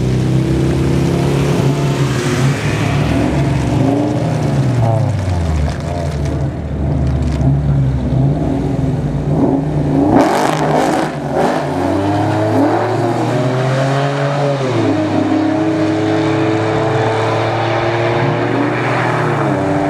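Buick Regal engine with a bad exhaust leak, its revs rising and falling. The pitch drops about five seconds in, and there is a louder stretch about ten seconds in before it settles to a steadier note.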